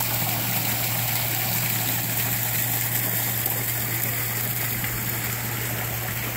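Pool waterfall splashing, a steady even rush of falling water with a constant low hum underneath.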